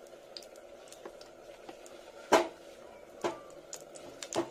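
Three sharp knocks of cookware being handled on the stove, about two, three and four seconds in, the first the loudest, over a faint steady hum.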